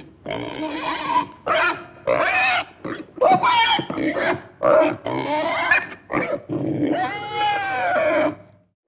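Pigs grunting and squealing: a run of about ten separate calls, the last a long squeal of about two seconds.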